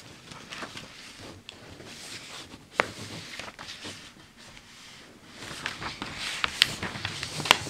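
Pages of a 1940 Good Housekeeping magazine being handled and turned: paper rustling with scattered crisp clicks, a sharp snap about three seconds in, and louder rustling and crackling over the last two seconds as a page is lifted and turned.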